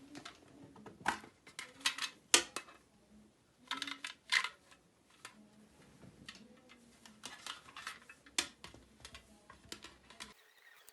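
Irregular sharp clicks and crinkly rustles of small items being handled close to the microphone, with a few louder taps.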